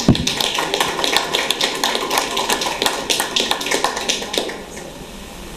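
A small group of people applauding: many quick, irregular claps that die away after about four and a half seconds.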